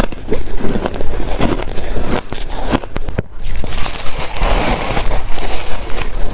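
Close-miked biting and crunching of shaved ice: many quick, crisp crunches one after another, with a brief lull about three seconds in.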